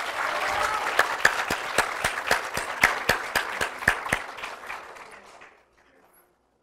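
Audience applauding, with a few sharp individual claps standing out. The applause thins out and stops about five and a half seconds in.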